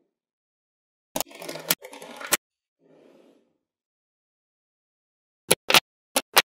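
Small magnetic balls clicking as they snap together, with a brief rattling scrape of balls shifting about a second in, then four sharp clicks near the end.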